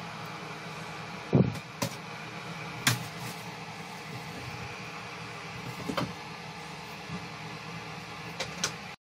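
Steady hum of a ventilation fan, with a few scattered knocks and clicks. The loudest is a dull thump about a second and a half in. The sound cuts off abruptly near the end.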